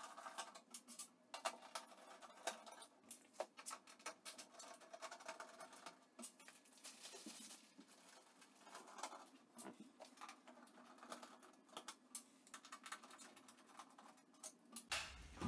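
Faint, irregular clicks and small scrapes of a screwdriver backing Torx screws out of a Bosch oven's sheet-metal back cover.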